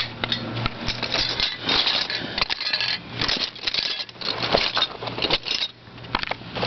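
Metal sockets clinking and rattling as a hand rummages through a socket set, in a rapid, irregular clatter.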